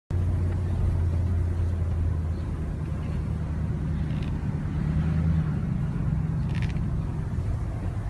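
Car driving, heard from inside the cabin: a steady low hum of engine and road noise, starting abruptly, whose pitch changes about halfway through.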